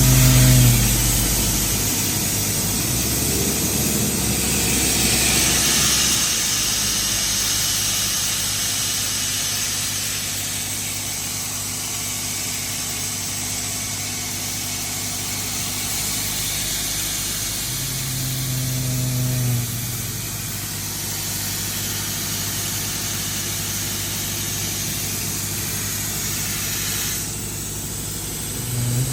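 Doosan air compressor running with an engine note and a steady hiss of air. A deeper tone swells for a couple of seconds about two-thirds of the way in and again at the very end.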